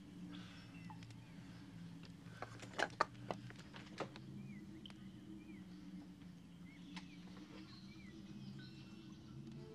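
Natural ambience of a low steady hum with short chirping bird calls repeating every second or two. A cluster of sharp clicks comes about three seconds in, the loudest sounds here.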